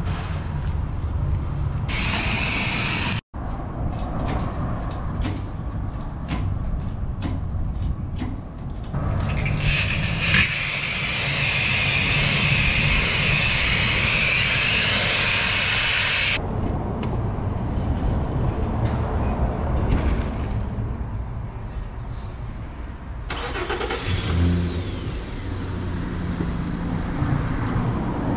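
A self-serve car-wash pressure wand sprays water in several stretches, the longest lasting about seven seconds in the middle, over a steady low rumble. The sound drops out for an instant about three seconds in.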